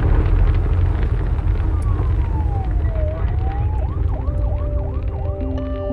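Police siren sounding over a heavy low rumble. It wails down and back up once, then switches to a fast yelp of about three cycles a second. Music fades in near the end.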